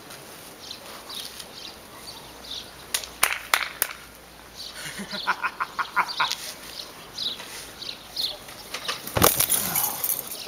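A heavy thud about nine seconds in as a wrestler's body lands from the top of a stepladder onto another wrestler lying on a mattress on the ground. Before it come a few sharp clicks, with small birds chirping in the background.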